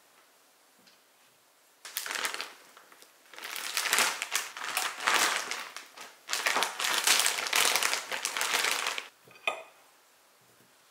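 Plastic packaging of a bag of assorted hot pot balls crinkling and rustling in three long bursts as the bag is opened and handled, with a short click near the end.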